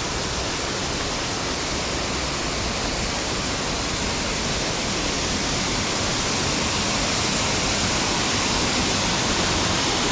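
Waterfall on a small burn: a steady rush of falling water, growing slightly louder towards the end.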